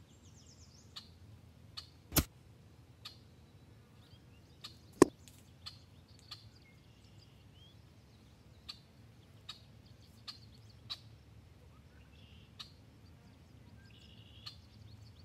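A single shot from an EDgun Leshiy 2 .25-calibre PCP air rifle about two seconds in. About three seconds later comes one sharp, very short click. Faint scattered ticks and birds chirping sit under both.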